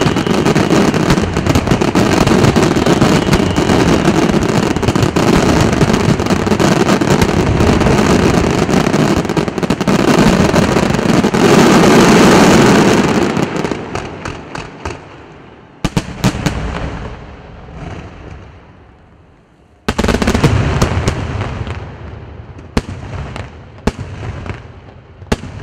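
Aerial firework shells bursting in a dense, continuous barrage, the closing salvo of a display. About halfway through it dies away into a few separate bangs, the heaviest about two-thirds of the way in, echoing away slowly.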